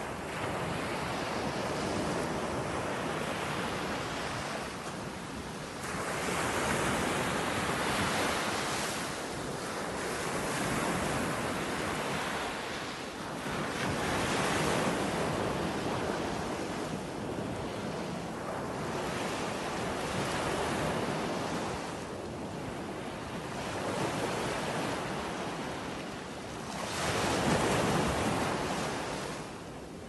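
Sea waves breaking and washing up a sandy beach, the surf swelling and fading every few seconds.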